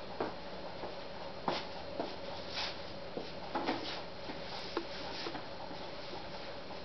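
Scattered irregular knocks, taps and rustles of a person walking up to a wooden table and leaning on it, over a steady faint room hum.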